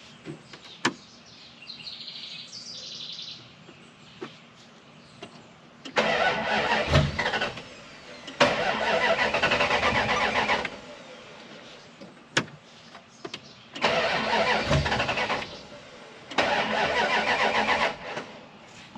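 Dodge Ram 1500's starter cranking the engine in four bursts of about two seconds each, with clicks between them, without the engine catching; the owner suspects the fuel pump.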